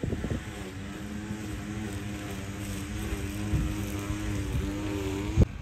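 Steady engine drone with a slightly wavering pitch, cut off suddenly near the end.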